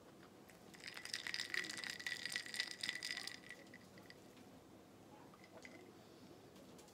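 Ice cubes rattling and clinking against a glass tumbler as the iced drink is picked up and swirled: a rapid run of small ringing clinks lasting about two and a half seconds, starting about a second in.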